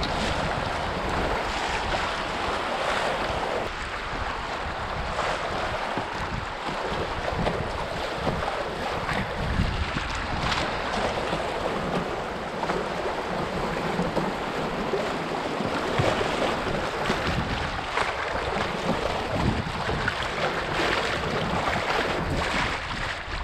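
Fast whitewater river current rushing and splashing around a canoe's bow, with wind buffeting the microphone in a low rumble.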